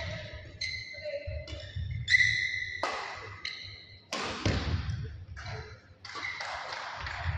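Badminton rally: sharp racket strikes on the shuttlecock about once a second, the loudest about two seconds in, with shoes squeaking on the court floor between them.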